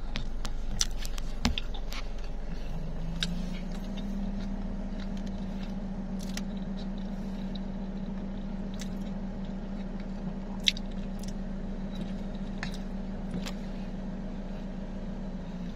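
Steady low hum of a running car heard inside the cabin, rising slightly in pitch about three seconds in and then holding. Scattered small clicks and crunches from chewing a mouthful of rice onigiri, most of them in the first couple of seconds.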